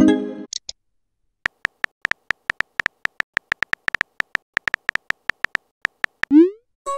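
Simulated phone texting-app sounds. A short chime sounds as a message bubble pops in, then a quick run of keyboard tap clicks, about six a second, as a reply is typed. Near the end a rising swoosh and another chime mark the message being sent.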